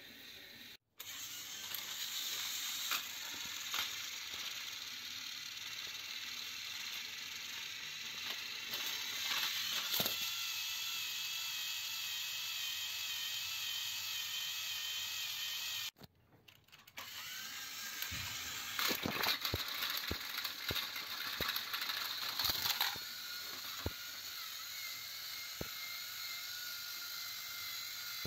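Small electric motors and plastic gearboxes of battery-powered Plarail-style toy trains whirring steadily with a wavering whine and gear clicking. A burst of plastic clicks and clatter comes in the middle.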